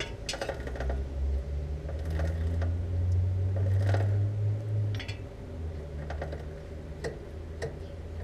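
Rear wheel of an AJS JS125 motorcycle turned by hand on its stand, the chain, sprocket and drum brake giving irregular clicks and light ticks over a low rumble that eases about five seconds in.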